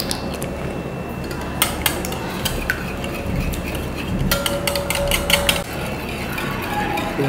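Wire whisk beating a thin liquid batter of egg, milk and oil in a glass bowl, its metal wires clicking against the glass: a couple of separate clicks, then a quick run of clicks for about a second near the middle.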